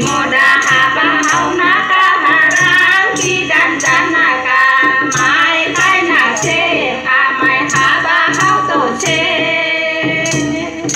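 Traditional Koch folk dance music: a melody sung by voices over double-headed drum beats and jingling percussion.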